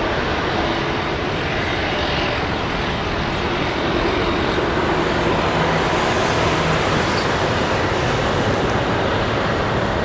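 Airbus A320 jet engines running with a steady roar as the airliner slows on the runway after touchdown, swelling slightly in the middle.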